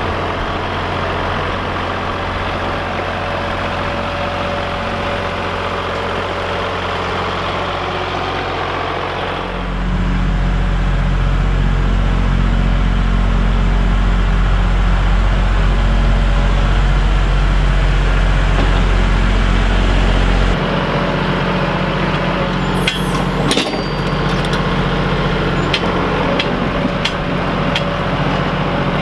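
Compact tractor engine running steadily as it drags a rear box blade through dirt along a drainage ditch. The engine note shifts abruptly about ten and twenty seconds in, and sharp clicks and rattles come in over the last several seconds.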